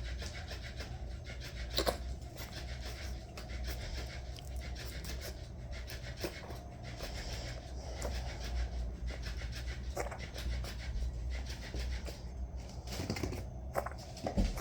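Six-week-old kitten snorting through her nose as she eats wet food, a continuous noisy rasp broken by a few sharp clicks. It is a particularly bad bout, caused by her cleft palate.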